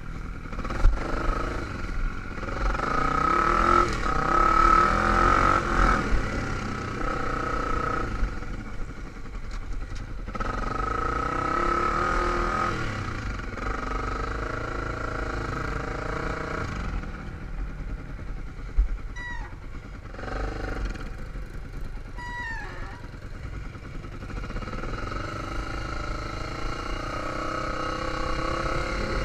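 Dirt bike engine running while being ridden, its pitch rising and falling as the throttle is opened and eased off, with louder pulls a few seconds in, around the middle and near the end.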